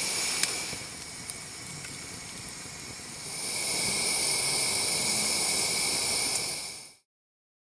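Pressure lantern burning with a steady hiss. It grows louder about three seconds in and fades out shortly before the end.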